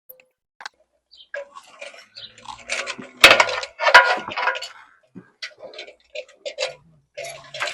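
Scattered clicks, knocks and scraping at irregular intervals, with a cluster of louder knocks about three to four seconds in.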